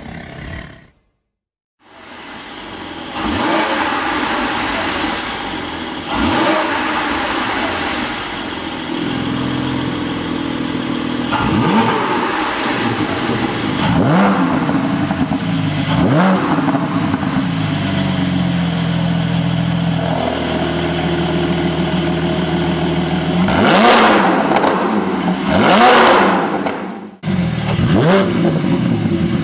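Porsche 718 Boxster GTS 4.0's flat-six idling and blipped several times, each rev rising sharply and falling back to idle. It is heard first through the stock exhaust, valves open and closed, then through a Fi Exhaust valvetronic muffler with catless downpipes.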